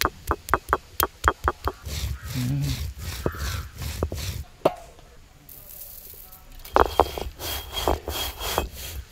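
Stone roller of a traditional grinding stone knocking down onto a stone slab, about eight sharp strikes in the first two seconds, to crack turmeric roots. It is then rubbed to and fro, grinding them to powder, with another run of knocks and scrapes near the end.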